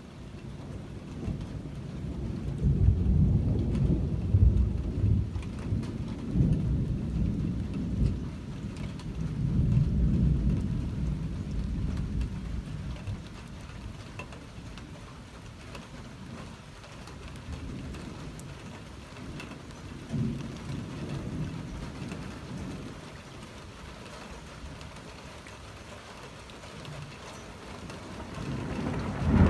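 Thunder rumbling in long rolls. A long roll fills the first dozen seconds, a shorter one swells about two-thirds through, and another builds at the very end.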